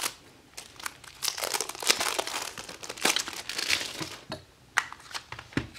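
Plastic shrink wrap being torn and crinkled off a DVD case: a run of irregular crackles and rustles.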